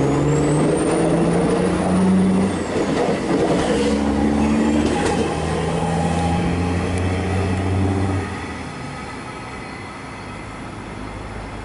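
X'Trapolis electric suburban train accelerating away from the platform, its traction motors whining in tones that rise in steps as it picks up speed, with a high thin whistle in the first few seconds. The sound drops away about eight seconds in as the train moves off.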